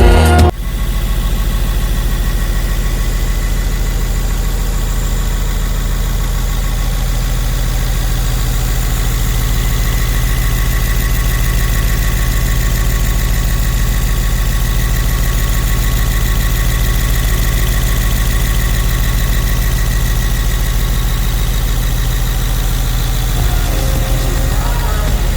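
Lamborghini Urus SE's twin-turbo V8 idling steadily through a full Novitec exhaust system.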